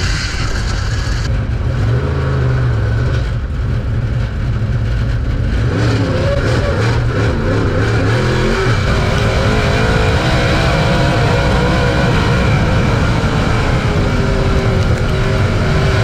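Dirt late model race car's V8 engine heard from inside the cockpit, running hard on a dirt track. The pitch rises and falls with the throttle about six to nine seconds in, then holds steadier.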